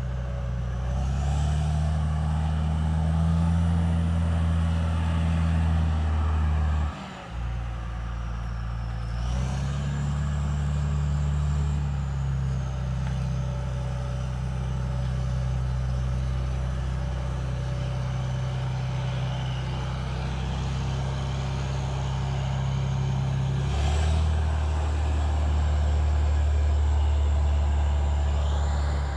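Big turbocharged diesel engine of an old wheel loader running as the loader drives slowly, with a high turbo whistle that rises and falls with the engine speed. The engine note drops away briefly about seven seconds in, picks up again a couple of seconds later, and steps up once more near the end.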